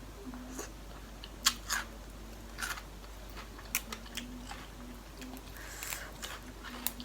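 A person chewing food close to the microphone, with scattered sharp clicks and small crunches.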